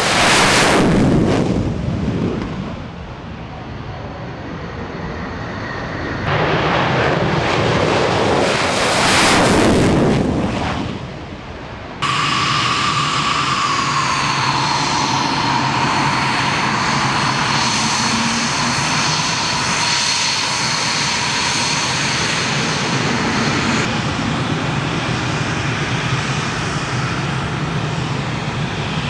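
Military fighter jet engines: two loud passes, each swelling and fading. Then, after an abrupt cut, a steady jet engine whine with high tones, one sliding slightly lower.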